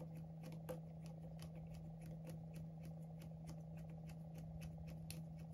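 Light clicks of a precision screwdriver and small tools, about four a second, while the right-hand bottom screw of an iPhone 11's charging connector is removed, over a steady low hum.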